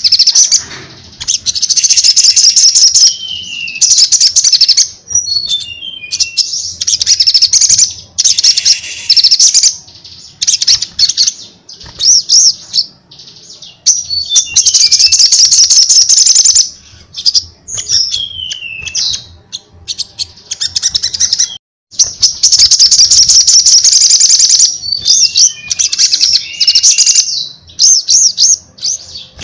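Male olive-backed sunbird (kolibri sogon) singing loud and continuously: rapid, high-pitched chattering trills in repeated bursts, with short pauses and occasional downward-sliding notes.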